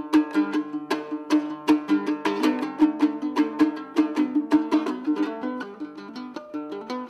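A komuz, the Kyrgyz three-string fretless lute, strummed in an instrumental küü: quick percussive strokes about four a second over ringing held notes, the playing growing a little softer after about five seconds.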